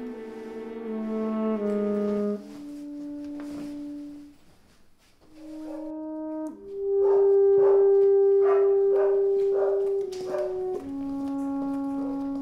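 Film score music: a slow melody of long held brass notes. It fades almost away about four seconds in, then returns with one long loud held note, followed by lower notes.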